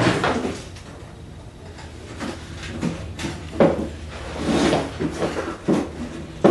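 Dehumidifier casing parts being handled during disassembly: scattered knocks, clunks and scraping, with a sharper knock about three and a half seconds in.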